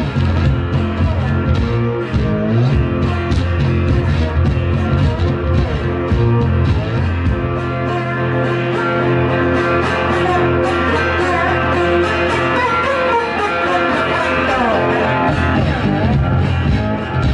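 Live blues band playing with electric guitar, bass and drums on a steady beat; the low bass drops out about halfway through.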